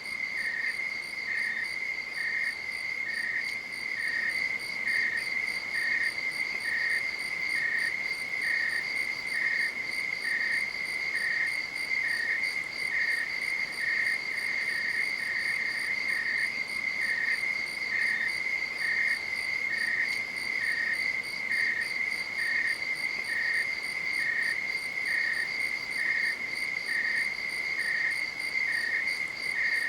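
Crickets calling: one steady high trill, with a second cricket's short chirps just below it in pitch, repeating evenly about twice a second.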